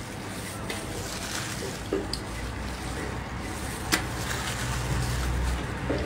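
Wet mouth sounds of eating crayfish tails: sucking and chewing, with a few sharp clicks, the loudest about four seconds in.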